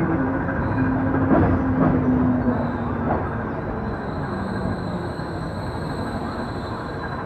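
Passenger train rolling slowly as it pulls in to stop at a station, heard from inside the carriage: a steady rumble of wheels on the track that eases off, with a low steady tone for a couple of seconds near the start.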